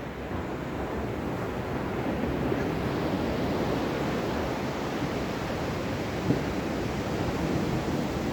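Ocean surf washing in a steady rush of noise, swelling slightly a couple of seconds in, with one short sharp knock about six seconds in.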